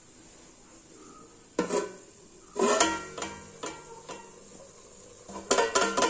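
Aluminium pans and a tawa being handled on the stove, clanking and ringing a few times, then a quick run of clinks near the end.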